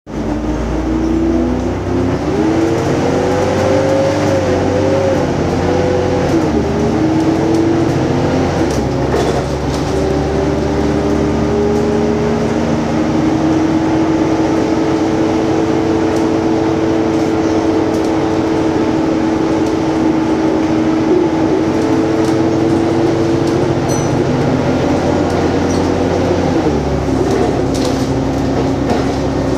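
Volvo Super Olympian (B10TL) double-decker bus under way, heard from the upper deck: diesel engine and ZF automatic gearbox running with a rumble and a whine. The whine climbs and wavers in the first few seconds, shifts twice around seven to nine seconds in, then holds at a steady pitch until another shift near the end.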